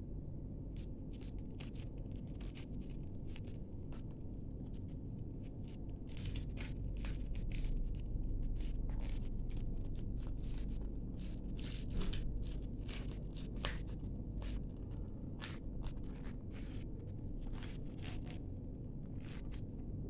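Folded A4 paper being slowly opened out by hand, crinkling and rustling in scattered crackles that come thickest a third of the way in and again in the second half, over a steady low background hum.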